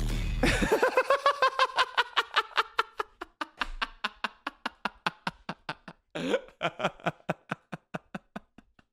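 Anime sound effect: a rapid train of wet, wobbling pulses in a 'wet dubstep' style, about six a second, that slows and fades over several seconds. Near the end come a few short voice-like sounds.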